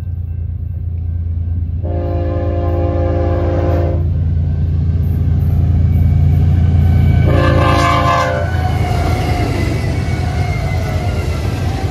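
BNSF freight train's diesel locomotives approaching over the rumble of their engines, which grows louder as they draw near; the air horn sounds a chord of several notes twice, a long blast about two seconds in and a shorter one near eight seconds. Then the wheels on the rails hiss as the locomotives pass.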